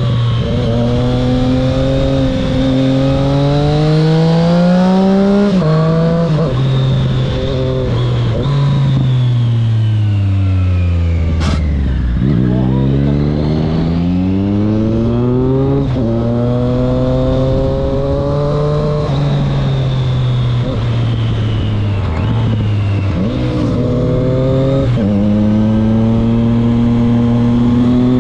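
Triumph Street Triple 660 S inline-three engine through an SC Project aftermarket exhaust, accelerating through the gears. The revs climb and drop back at each upshift, fall in one long slowdown near the middle, then climb through the gears again.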